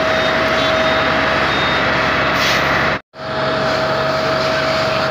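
Fire tender's engine and water pump running steadily, a loud rushing noise with a constant whine, cutting out for a moment about three seconds in.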